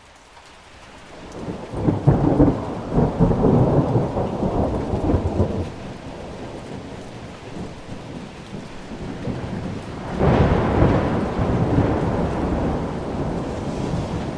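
Rain falling steadily with thunder: the sound fades in, a long rolling rumble comes about two seconds in and lasts a few seconds, and a second rumble breaks in suddenly about ten seconds in.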